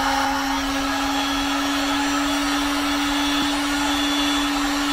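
Electric heat gun running steadily, its fan motor giving a steady hum over the rush of blown hot air while it shrinks heat-shrink tubing onto a crimped wire terminal.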